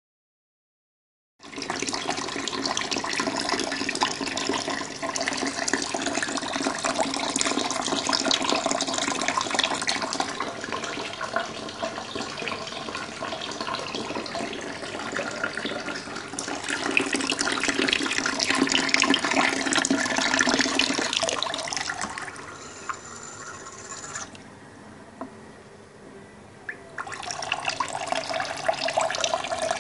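Water gushing and splashing steadily as a 12 V DC mini submersible pump pushes it through a hose, starting abruptly about a second and a half in. The flow sound thins out about three quarters of the way through, then picks up again near the end.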